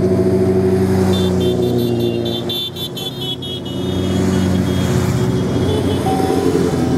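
Group of motorcycles riding past with engines running, with a series of short, high horn toots from about one to three and a half seconds in. Fainter repeated beeps come near the end.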